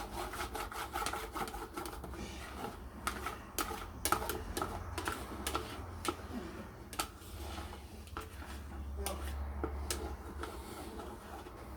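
Light, irregular clicks and scrapes of spatulas moving melted butter around a Micro Chef microwave grill pan, over a low steady hum.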